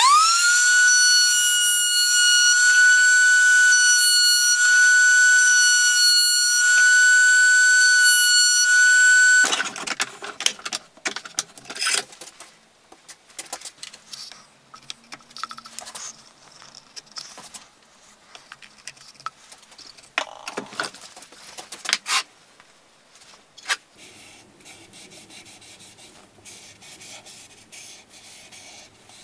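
Trim router in a router table spinning up to a steady high whine, which cuts off abruptly after about nine seconds. After that, quieter scattered clicks and soft rubbing, with a cloth wiping finish onto wood near the end.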